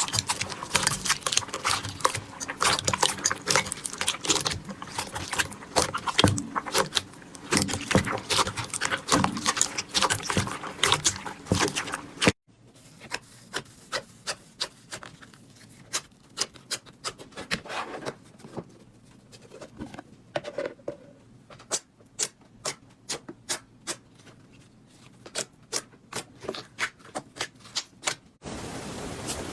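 Slime being squeezed and pressed by hand, giving a dense run of crackling, popping clicks. About twelve seconds in it cuts to a quieter clip of slime worked more slowly, with separate clicks and pops a few times a second.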